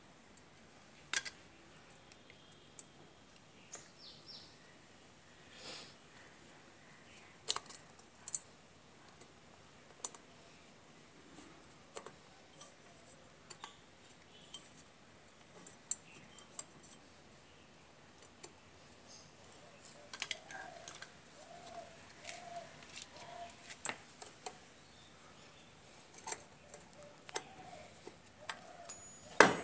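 Scattered light metallic clicks and taps of a steel rod against a Bajaj three-wheeler's brake drum and wheel studs, coming more often in the second half, with one sharp louder knock right at the end.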